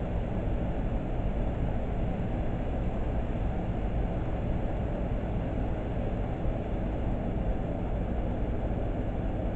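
N-scale model coal train rolling past on the layout track: a steady low rumble of the cars' wheels on the rails, with a faint hum underneath.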